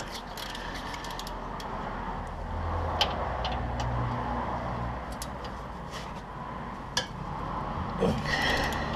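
A motor vehicle running steadily, with a few sharp clicks of tools.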